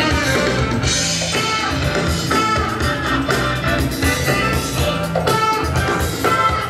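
DJ-played break music with guitar and drums and a steady beat, playing for the dancers.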